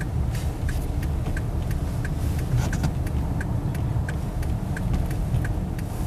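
Car cabin at crawling speed on a snow-covered highway: a steady low rumble of engine and tyres on packed snow, with a run of light ticks about three a second.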